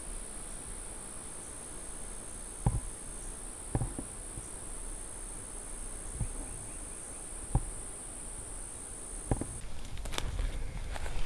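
A steady, high-pitched insect drone, with a few soft knocks scattered through it. Near the end the drone stops and quick footsteps crash through dry brush.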